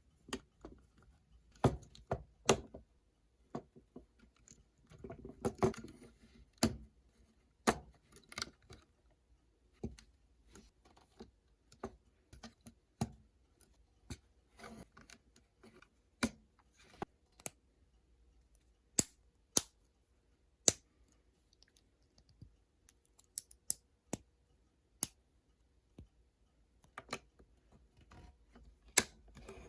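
Plastic Lego pieces from the Star Wars 75283 Armored Assault Tank set being handled and pressed together: sharp, irregular clicks and snaps, often a second or more apart, with a brief rustling clatter of loose pieces about five seconds in.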